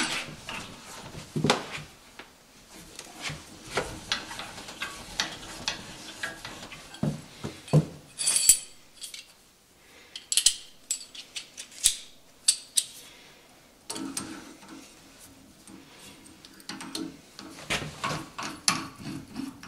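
Scattered metal clinks and clatter of a 1/2-inch hollow mortising chisel and bit being handled and fitted up into a drill press chuck, a few of the clinks ringing briefly.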